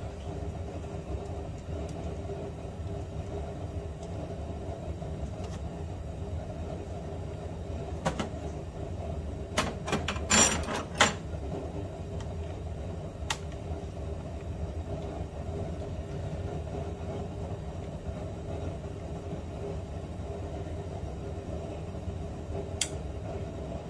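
A steady low hum with scattered sharp clicks and knocks, a short cluster of them about ten seconds in, from hands and tools working on the minivan's front blower motor and its screws.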